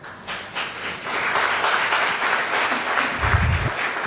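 Audience applauding, building up over the first second and then holding steady, with a brief low thump about three seconds in.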